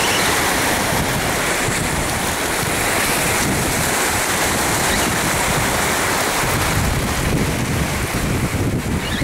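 Steady wind noise on the microphone over the wash of the sea.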